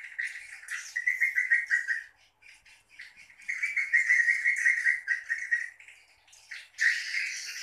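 Edible-nest swiftlets twittering: long, rapid trills and scattered high chirps, with a louder burst of chatter near the end.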